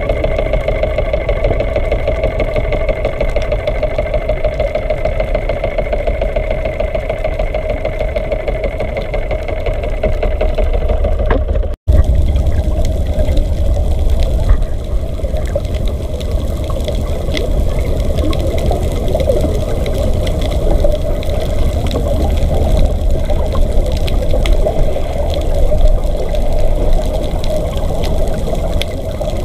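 Steady hum of a boat engine heard underwater, over a heavy low rumble of water against the camera; the sound breaks off for an instant about twelve seconds in.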